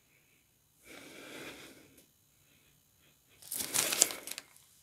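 A long soft sniff at a wax melt held to the nose, then a clear plastic bag crinkling as the melt is handled, about three and a half seconds in.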